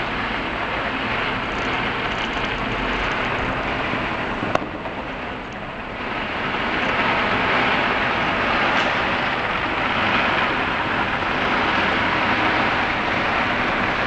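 Steady city traffic noise rising from the streets below, with a single sharp crack about four and a half seconds in.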